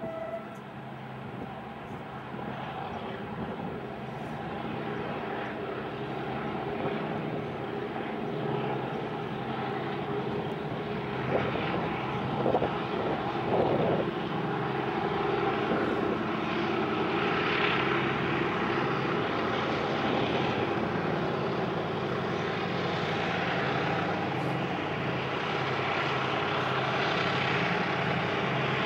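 Three CP 1900-class diesel locomotives hauling a loaded coal train, their engines working under load in a steady deep drone that grows louder as they approach.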